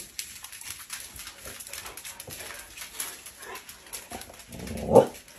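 Several husky-type dogs trotting in over a laminate floor, their claws clicking in a quick scatter. About five seconds in, one dog gives a short, loud cry.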